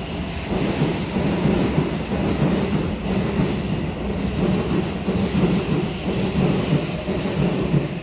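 Keihan 8000 series electric train passing a level crossing, its wheels running over the rails in a steady noise.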